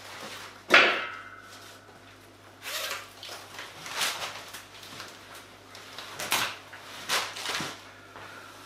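A sharp knock with a brief ring about a second in, then several soft rustles of fabric as a coat is pulled off.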